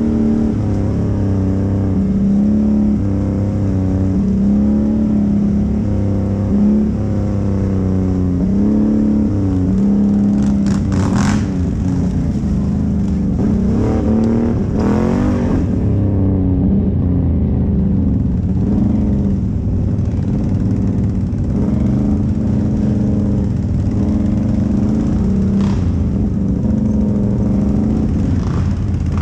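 Off-road vehicle engine running under way, its pitch rising and falling as the throttle is worked, with a brief rush of noise about halfway through.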